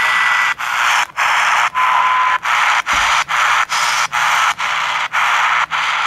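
Static hiss from the SI4732 pocket radio's small speaker as it is tuned up the AM broadcast band in 10 kHz steps. The sound cuts out briefly at each step, about twice a second. There is a short whistle at the start and a lower one about two seconds in, with no station coming through: the AM band is quiet.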